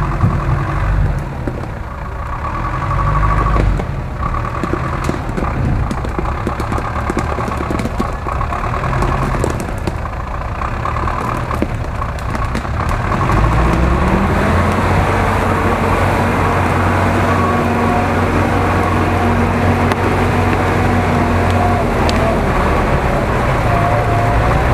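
GAZ-66 army truck's engine working hard as the truck churns through deep forest mud. The revs climb about halfway through and then hold high and steady.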